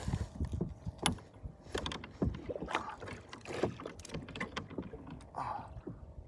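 Irregular knocks, clicks and rustling of a fishing rod and reel being handled on a kayak while tangled lines are sorted out.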